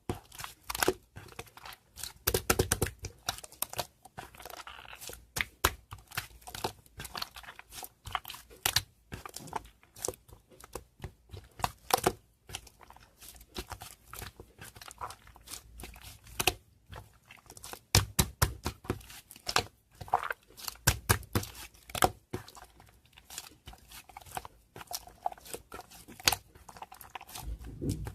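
Irregular crinkling and sharp clicks from something being handled close by, in quick clusters with short pauses.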